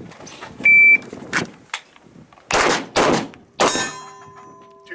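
An electronic shot timer gives one loud, high start beep. Under two seconds later come three handgun shots about half a second apart, fired from the draw against the timer.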